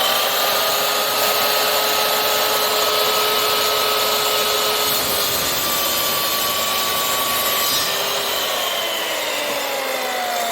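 Electric mitre saw motor running at full speed with a steady whine. Its pitch starts to fall about eight seconds in as the blade winds down.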